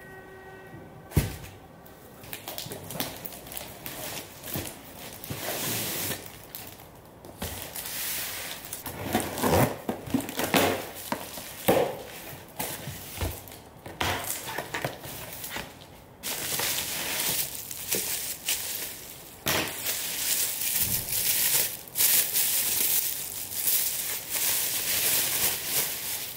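Cardboard box and its packaging crinkling and rustling as shoes are unpacked by hand, in irregular handling noises with a sharp knock about a second in.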